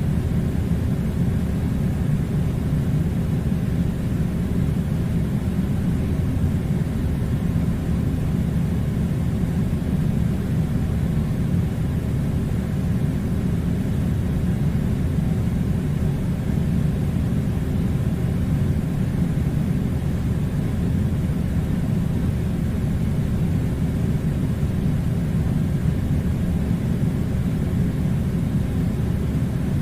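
Air conditioner running: a steady, unchanging low rumbling drone.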